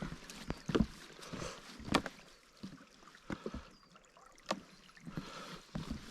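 Uneven footsteps and knocks on a trail, a handful of sharp strikes a second or so apart over a faint steady hiss.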